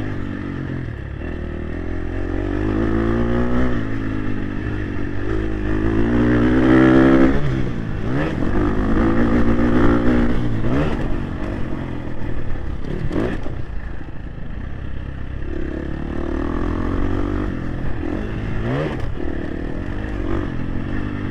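Motocross dirt bike engine revving up and falling off over and over as it is ridden, with several sharp throttle chops, the clearest about 8 and 13 seconds in.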